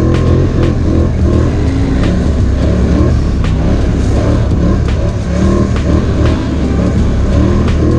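Polaris ATV engine running and revving under throttle on a muddy trail ride, with scattered sharp knocks.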